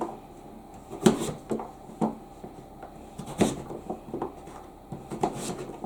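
Kitchen knife dicing butternut squash on a cutting board: about ten irregular knocks of the blade on the board.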